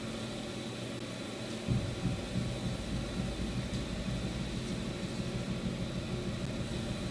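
Steady low background hum, with faint soft bumps from about two seconds in.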